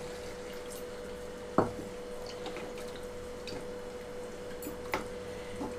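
Wooden spatula stirring freshly added water through a tomato and methi curry in a nonstick kadai, making wet, sloshy squishing sounds, with two sharper knocks of the spatula against the pan, one about 1.5 s in and one near 5 s. A steady low hum runs underneath.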